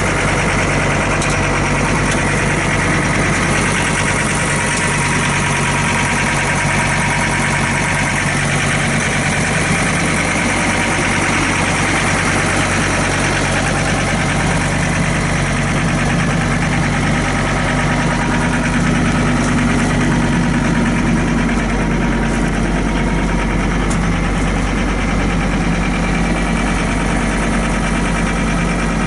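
2006 John Deere 325 skid steer's diesel engine running steadily, its tone shifting slightly about two-thirds of the way through.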